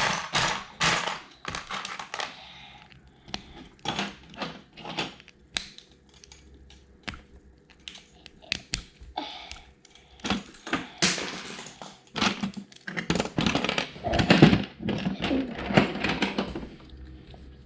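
Plastic Lego bricks clicking and clattering as they are handled and pressed together, a busy, irregular run of small clicks.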